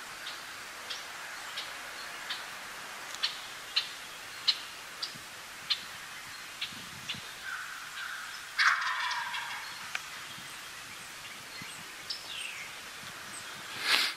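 Wild turkey tom gobbling: one loud gobble about two-thirds of the way through, falling in pitch over about a second, and another loud call right at the end. Short high chips tick about once a second throughout.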